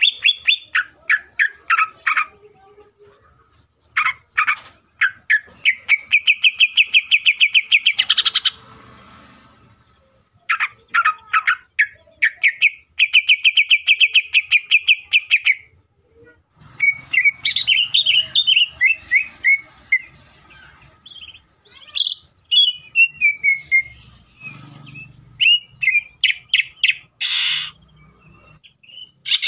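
Male greater green leafbird singing loudly in fast trills of rapidly repeated notes. The trills alternate with varied falling whistled phrases, with short pauses between them.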